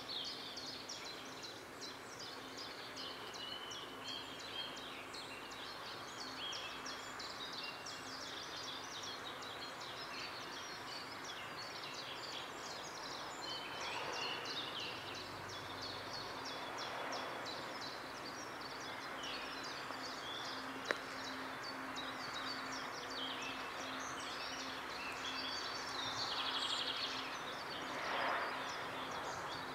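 Outdoor ambience of many small birds chirping and singing throughout, over a faint steady hum, with a couple of soft swells of rushing noise.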